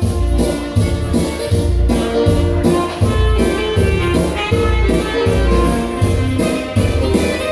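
Dance music with a steady beat and a strong bass line.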